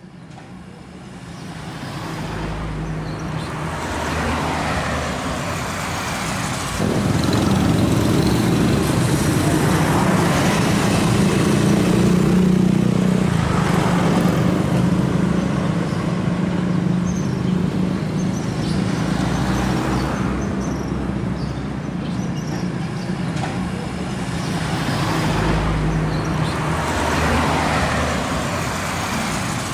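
Street traffic fading in: several vehicles pass one after another, each swelling and fading, over a steady low engine hum.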